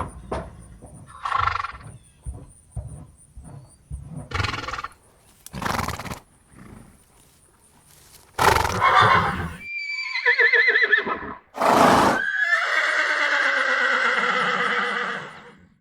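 Horse moving about with hoof knocks and several noisy blows of breath. About ten seconds in it gives a wavering whinny that falls in pitch, then a sharp blow, then a long neigh held for about three seconds before fading.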